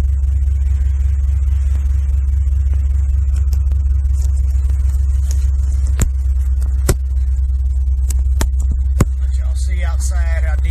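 Steady low rumble of a truck running, heard from inside its cab, with a few sharp clicks in the second half.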